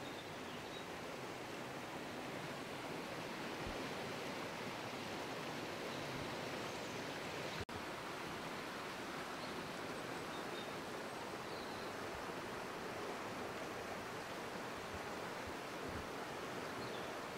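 Steady rush of flowing river water, with a momentary break in the sound about eight seconds in.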